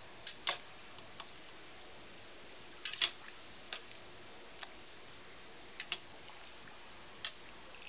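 A slotted spatula clicking and knocking against the side of a stainless steel pot while spaghetti is stirred: about nine sharp, irregular taps, the loudest about three seconds in, over a steady faint hiss.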